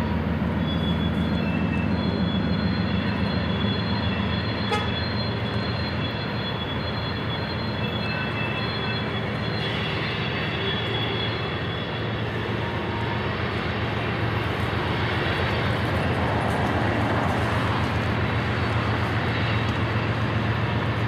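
Freight trains rolling slowly over steel railway bridges: a steady rumble of diesel locomotive engines and wheels, with a faint high steady whine through the first half.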